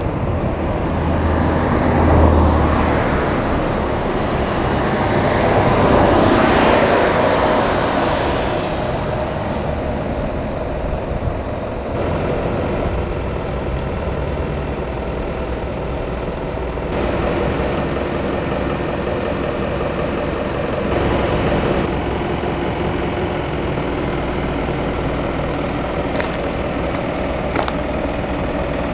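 Road traffic noise: motor vehicles passing, two of them swelling up and fading within the first eight seconds, then a steady background of traffic.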